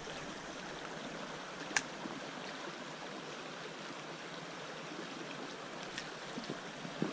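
Small brook running over rocks: a steady rush of flowing water, with one short sharp click a little under two seconds in.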